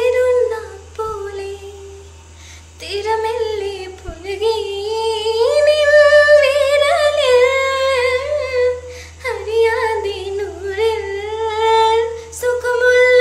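A woman singing a slow song solo, with no instrument heard, holding long notes with a wavering vibrato. She breaks off briefly about two seconds in and again around nine seconds.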